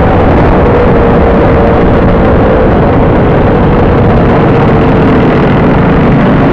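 Motor scooter engine running on the move, buried in heavy wind and road rumble on the microphone, with a steady engine note that dips slightly in pitch.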